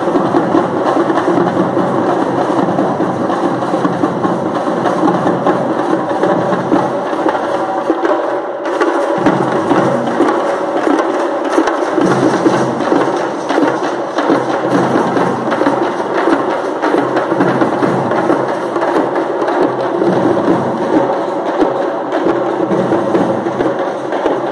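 Parai frame drums beaten with sticks in a fast, dense, continuous rhythm, the sharp hide-and-stick strikes sounding together, with a momentary break about eight and a half seconds in.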